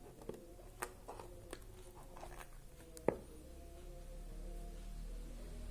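A small product box being opened and its contents handled: scattered light clicks and rustles, with one sharper tap about three seconds in.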